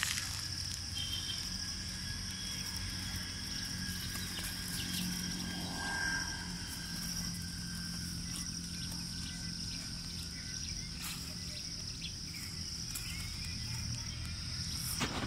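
Insects droning steadily at a high pitch, with a low steady hum beneath and a few faint clicks.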